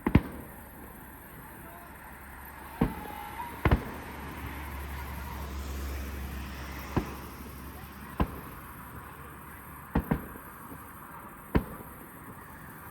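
Aerial display fireworks shells bursting high overhead: about eight sharp bangs at irregular intervals, some in quick pairs, the loudest right at the start.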